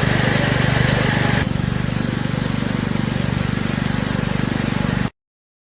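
An engine running steadily with a fast, even chugging beat. A high steady whine over it stops about a second and a half in, and the sound cuts off abruptly near the end.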